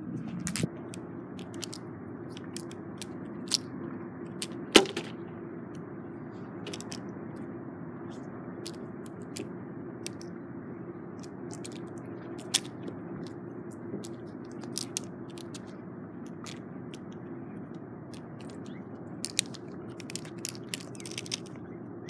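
Steady wind rushing on the microphone, with scattered sharp clicks now and then, the loudest about five seconds in and several close together near the end.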